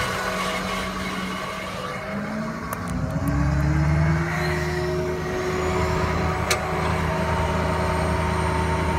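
Ford 6.0 L Power Stroke V8 diesel of a 2006 F-550 running with the PTO engaged. About two seconds in its speed rises, settling a couple of seconds later at a higher steady pitch, with a whine rising alongside.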